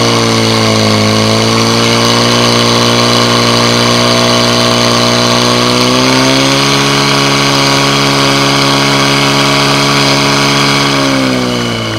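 Portable fire pump's engine running hard, driving water through the hoses to the two nozzles. Its pitch rises slightly about six seconds in, then drops and fades near the end.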